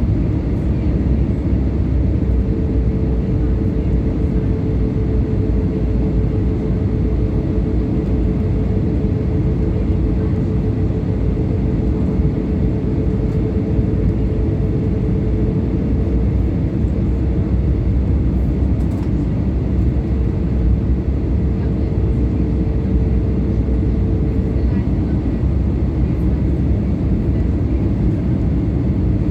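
Steady cabin noise inside an Airbus A320neo airliner in flight: a loud low rumble of airflow and engines, with a faint steady hum that drops out for about two seconds partway through.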